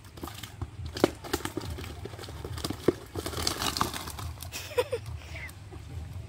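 Freshly netted tilapia flapping and slapping in a mesh net and basin: irregular sharp slaps and knocks.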